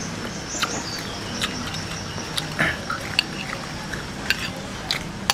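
Metal spoon clinking and scraping against ceramic plates as food is served, with scattered light clicks and the mouth sounds of eating.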